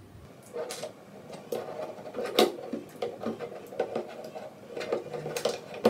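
Small plastic clicks and scrapes, irregular, from working a 9-volt block battery and its connector into the battery compartment of a handheld spider and insect vacuum; the sharpest click comes about two and a half seconds in.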